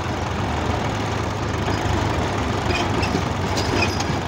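Diesel engines of two farm tractors, a New Holland 3032 and a Mahindra, running hard under load in a steady low drone as they pull in tandem on a chain to drag a stuck tractor out of mud.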